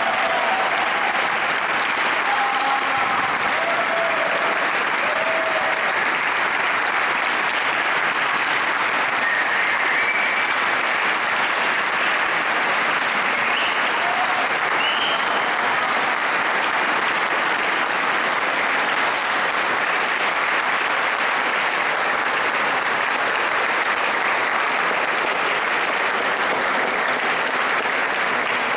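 A large audience applauding steadily in a standing ovation, with a few brief cheers in the first few seconds.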